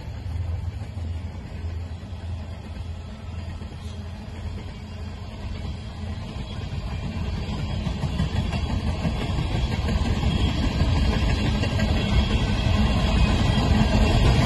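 Low rumble of a BNSF coal train on the rails. It is steady at first and grows louder from about halfway through.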